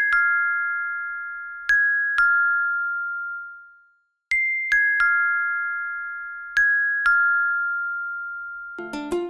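Background music of bell-like chime notes, each struck and left to ring out and fade, falling in pitch in small groups of three and two that repeat. A plucked-string tune comes in near the end.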